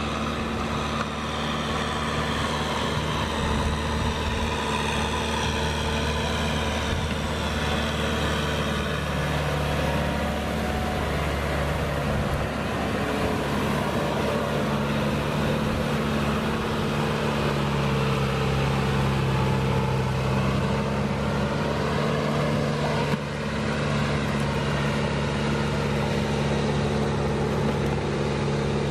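Tractor engine running steadily in a flooded rice paddy, a low hum whose pitch shifts a little midway as the load changes.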